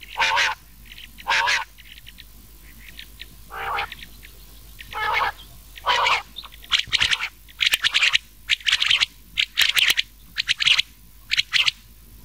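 Quail calling over and over, rain quail mixed with another quail (batair): short sharp call notes spaced about a second apart at first, then coming in quicker runs of clipped notes from about halfway through.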